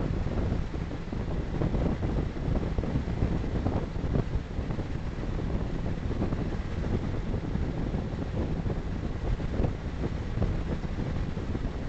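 Steady rush of wind and road noise from a motorcycle cruising at motorway speed, about 110 km/h, with no distinct events.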